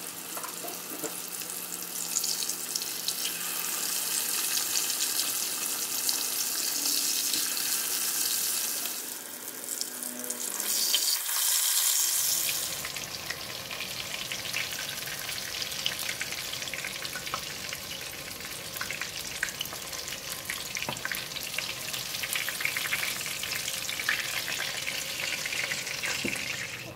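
King mackerel slices coated in curry powder deep-frying in hot oil: a steady sizzle.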